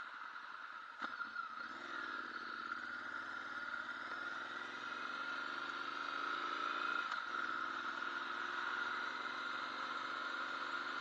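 Motorcycle engine pulling away and accelerating, its pitch climbing through a gear, dropping at a gear change about seven seconds in, then climbing again.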